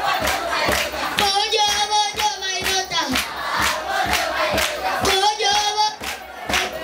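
A chorus of children singing together in long held notes, over a fast, steady percussive beat.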